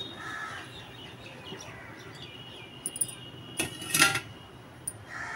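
Cooking oil being added to an iron kadhai heating on a gas stove, with a sharp clink right at the start and a loud cluster of metallic clinks about three and a half to four seconds in.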